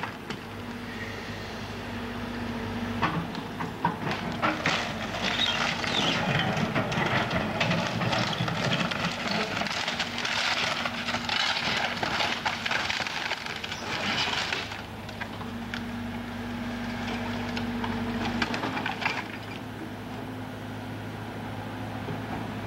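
An engine running steadily under the crunching, cracking and splintering of timber as the burned cabin's walls are torn apart. The crackling is heaviest from about three seconds in to about fifteen seconds, with a few sharp cracks, then eases back to the engine hum.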